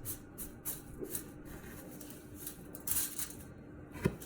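Chicken cutlets being pressed and turned in dry panko breadcrumbs: soft, repeated crumbly rustling, with one sharp knock near the end.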